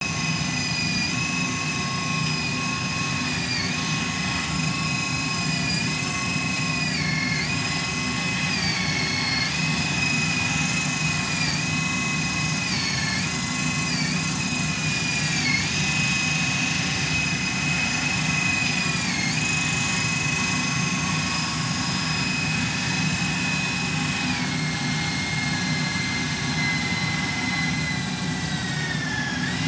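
RC wheel loader model's electric motors running with a steady high whine over a low rumble, the whine dipping briefly in pitch again and again as the motors take load while the loader drives and works its lift arm. The whine slides down in pitch near the end.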